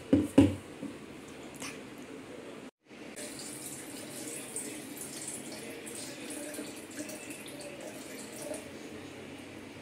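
Milk pouring in a steady stream from a glass into a stainless steel mixer-grinder jar. There is a sharp knock just after the start, and the sound cuts out for a moment before the pouring.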